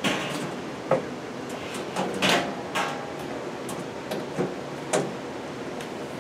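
Stainless-steel sheet-metal panel of a Miele PG 8583 dishwasher being fitted back on by hand: a series of metal knocks and clicks as it is worked into place, the loudest a little over two seconds in.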